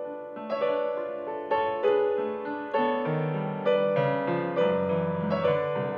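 Piano playing slow chords, each one struck and left to ring, a new chord about every second.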